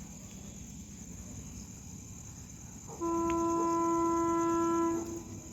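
A locomotive's air horn sounds one steady, single-note blast about two seconds long, starting about three seconds in.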